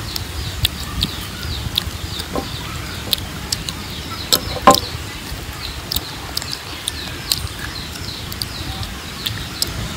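Chickens clucking, with one loud cluck about halfway through. Over it come sharp clicks from metal spoons scraping soft fruit flesh and from chewing.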